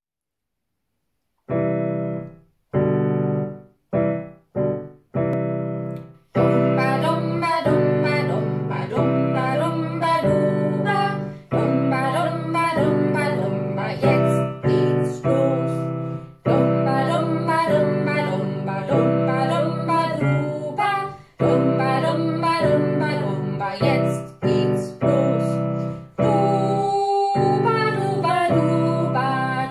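Piano music: a few short, separate chords, then a continuous accompaniment with a woman singing over it.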